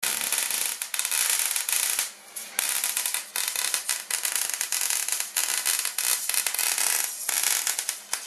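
Wire-feed welder's arc crackling steadily as a bead is laid on a steel-tube go-kart frame, breaking off briefly about two seconds in and again near seven seconds.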